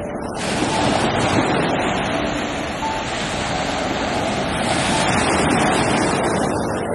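Small sea waves breaking and washing up a sandy shore, a steady rush of surf, with some wind on the microphone.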